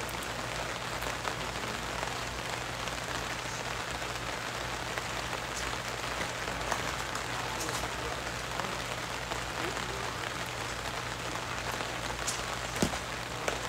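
Steady outdoor background hiss with a low hum beneath it, and two sharp knocks near the end.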